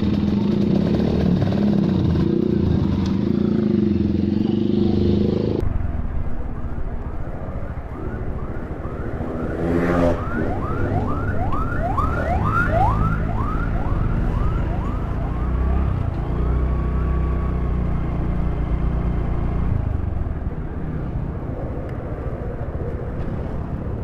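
Motorcycle engines running: first motorbikes at idle, then, after a cut, the engine of a motorcycle being ridden along a town road. About ten seconds in, a siren-like run of quick rising whoops, about three a second, lasts for several seconds.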